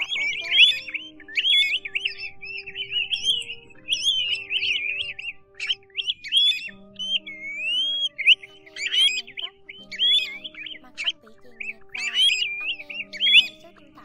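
A dense run of Pacific golden plover calls: many overlapping slurred whistles, rising and falling, several a second, like a calling flock. Soft background music with long held notes runs underneath.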